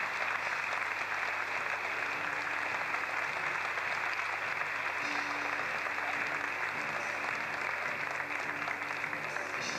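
Audience applauding steadily, a sustained clapping that eases slightly near the end.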